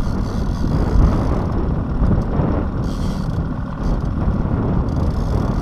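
A boat under way: the steady run of its motor and the water, with wind buffeting the microphone.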